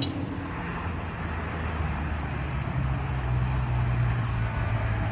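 A car engine running steadily, a low hum that grows a little stronger about three seconds in, with a sharp click at the very start.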